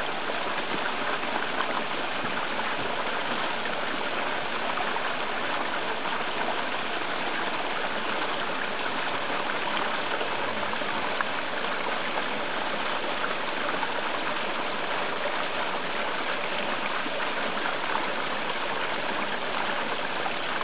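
Shallow stream running over pebbles close by, a steady, unbroken rush of water with small splashes.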